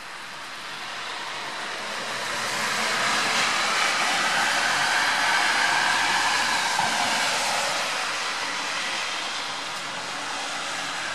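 Rain falling, with the tyre hiss of a vehicle passing on the wet road. The hiss swells from about two seconds in and fades after about eight.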